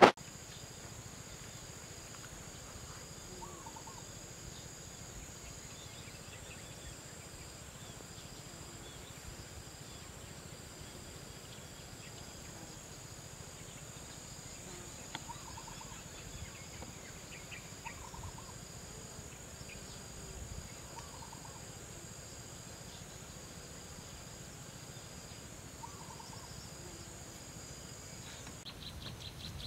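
Insects in a rice paddy: one steady, high-pitched insect drone with another insect pulsing about once a second, a few short faint calls scattered throughout, and a low wind rumble underneath. Near the end a faster insect trill starts.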